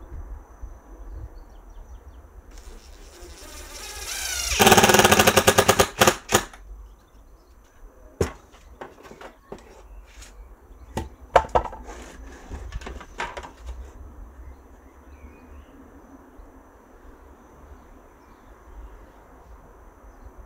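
Cordless drill whining up in pitch, then rattling loudly with a fast run of sharp strokes for about two seconds as it works into the wood. After it come scattered clicks and knocks of tools handled on the workbench.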